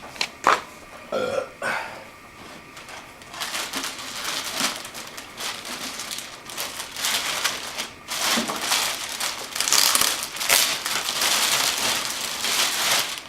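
Plastic packaging crinkling and rustling as it is handled and pulled off a guitar amp combo, in irregular bursts, after a few short knocks in the first two seconds.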